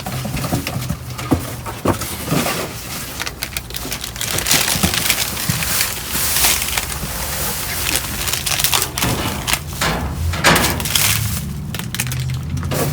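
Rummaging through trash in a dumpster: bags, boxes and discarded produce being pushed aside and handled, an irregular run of rustles, crunches and knocks.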